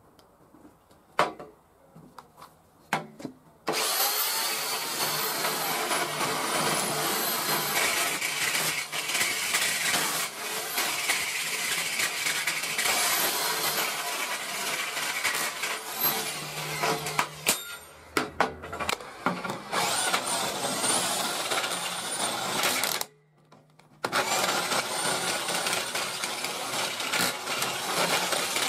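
Electric drill boring holes into a steel plate table top: a few clicks, then the drill running under load from about four seconds in, with its pitch wandering as it cuts. It stops briefly near the middle and again for about a second near the end before starting up again.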